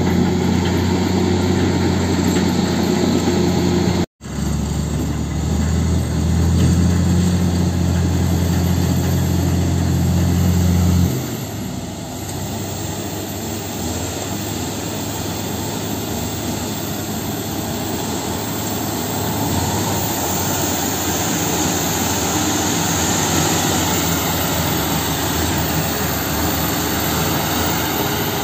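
Diesel engines of a crawler bulldozer and dump trucks working in mud. A steady deep engine drone cuts out for an instant about four seconds in and stops near the middle. After that a broader, noisier engine sound without the deep hum carries on.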